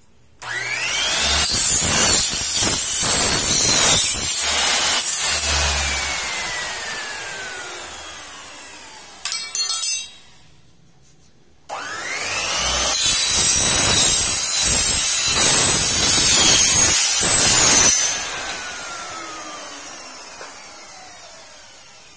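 Electric mitre saw cutting aluminium window-frame profile, twice: each time the motor starts with a rising whine, the blade cuts through the aluminium with a harsh, high-pitched noise for several seconds, and then the motor winds down in a slowly falling whine. A brief clatter comes between the two cuts.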